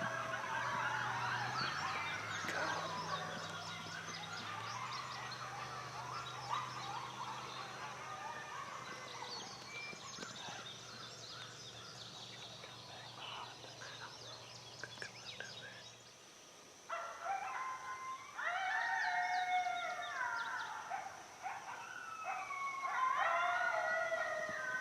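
Coyotes howling and yipping in a chorus of many wavering high calls. After a short lull about sixteen seconds in, louder howls with rising and falling pitch start up.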